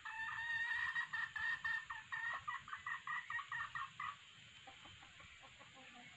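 Red junglefowl clucking: a fast run of high notes that breaks into separate clucks, about four a second, and stops about four seconds in. A few fainter, lower clucks follow.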